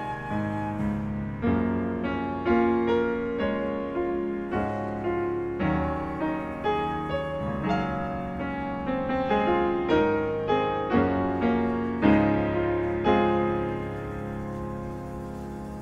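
Grand piano playing a slow passage, one note or chord after another struck and left to ring and fade; near the end a chord is held and dies away.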